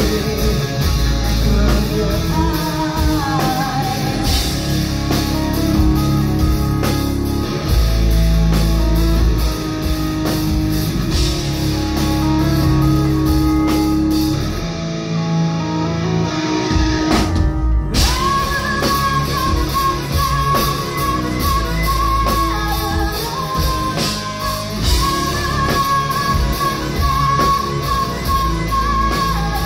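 Live metal band playing a song: female lead vocals over electric guitar, bass and drum kit, heard from the audience through the club PA. The cymbals and top end drop out for a few seconds just past the halfway point, then the full band comes back in under a long held note.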